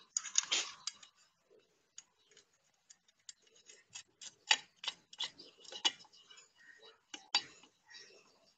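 Irregular light clicks and knocks, several in a row with short gaps, from handling small hard parts while working on an angle grinder; no motor is running.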